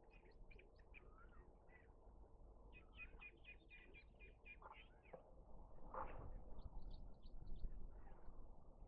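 Small birds chirping faintly, with many short high notes and a quick run of repeated notes about three seconds in. A louder, noisier sound comes in about six seconds in.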